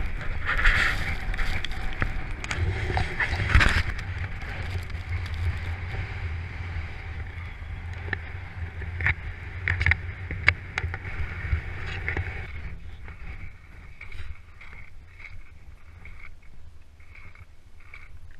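Wind buffeting the action camera's microphone during a ski descent over snow, a low rumbling noise with the hiss of skis and occasional sharp clicks. It eases and gets quieter about twelve seconds in.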